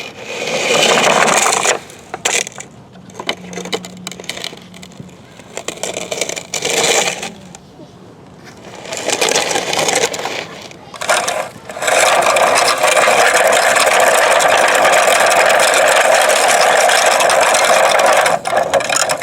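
Sand scraping and rattling against a toy steel construction truck, in several short bursts and then a steady stretch of about six seconds near the end.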